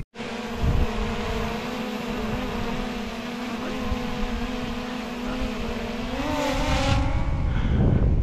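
Small folding quadcopter drone's propellers whining steadily while it hovers close by. Their pitch rises about six seconds in as the drone speeds up. Near the end the whine fades and a low rumble of wind takes over.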